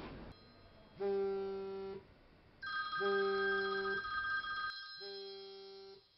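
Mobile phone ringing with an incoming call: a ringtone of three one-second tones about two seconds apart, with a higher steady tone joining over the second half.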